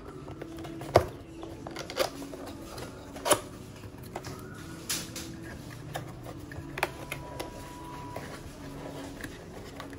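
Cardboard box being opened by hand: end flaps unfolding and popping free, giving a few sharp snaps and taps with light rustling. The loudest snaps come about a second in and about three seconds in.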